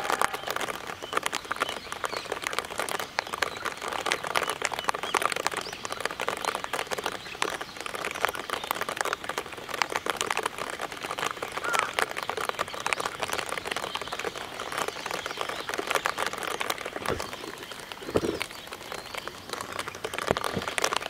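Steady rain: a dense, even patter of raindrops falling on the pond and hitting close by.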